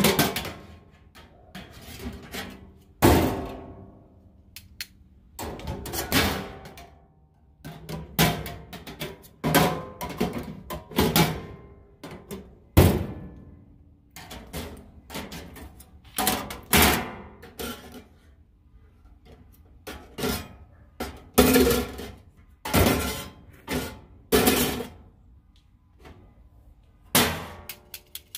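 Stainless-steel steam-table pans and hinged lids clanking and rattling as they are lifted, set down and flipped shut, with metal tongs clicking against them: irregular metallic knocks, each with a short ring.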